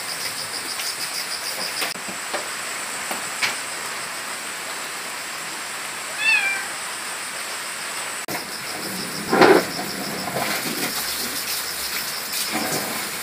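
Domestic cats meowing a few times over a steady hiss of light drizzle, with a high pulsing buzz behind; the loudest call comes about nine seconds in.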